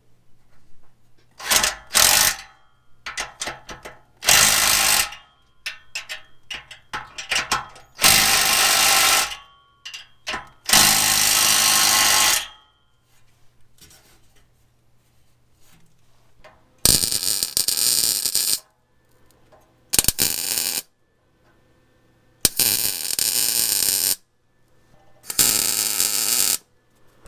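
Eight short, loud bursts of shop-tool noise, each one to two seconds long, from work fastening the new muffler's exhaust clamp and tailpipe, with a faint steady low hum in the gaps between them.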